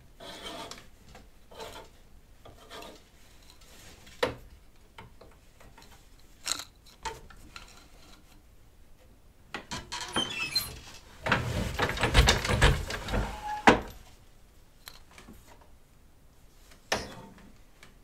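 Wooden floor loom being worked to weave twill: scattered wooden knocks and clicks, with a louder run of dense clattering and thumps about two-thirds of the way through and a single sharp knock near the end.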